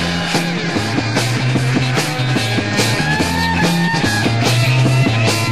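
Early-1970s psychedelic rock recording: a busy bass line moving under regular drum hits, with an electric guitar line that bends in pitch about three seconds in.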